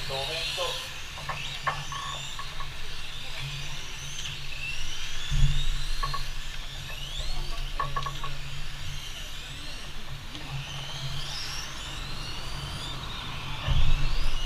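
Electric 1/10-scale RC Formula 1 cars lapping the track: high motor whines rise and fall in pitch as the cars accelerate and slow through the corners, over a steady low hum. A brief low rumble swells twice, about five seconds in and near the end.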